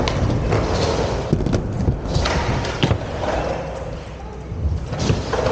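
Inline skates rolling over a wooden skatepark ramp with a continuous rumble, broken by several sharp knocks and thuds of the skates hitting the surface and ledge during a grind attempt.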